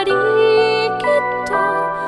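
Slow, gentle song: a woman's voice singing with a wavering vibrato over soft held accompaniment.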